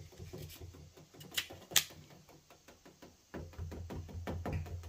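Light clicks and taps of hands pressing and handling an adhesive emblem on a pickup's fender. Two sharper clicks come about a second and a half in.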